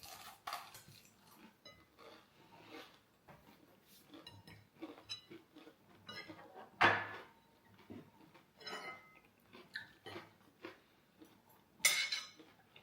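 Cutlery clinking and scraping against plates while eating, in scattered small clinks, some with a short metallic ring. There is a sharper knock about seven seconds in and another near the end.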